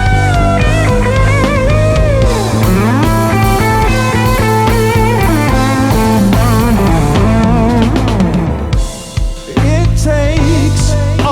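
Live band with electric guitar playing a lead solo of bent, wavering notes and quick runs over bass, drums and keyboards. About nine seconds in the band drops out for a moment, then comes back in.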